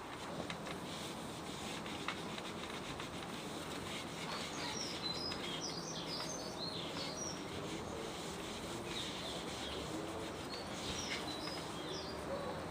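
Steady rubbing on the wood of a teak garden bench as a beeswax and paraffin emulsion is worked in, with a few faint clicks. Small birds chirp in two short bouts, about four and nine seconds in.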